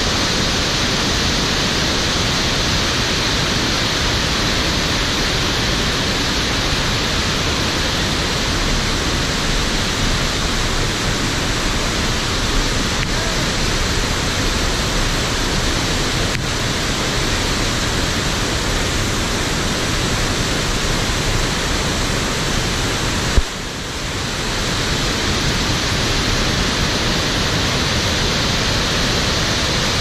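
Steady rush of the Great Falls of the Passaic River, heavy white water pouring over a rock ledge close by, heard as an even, unbroken wash of noise.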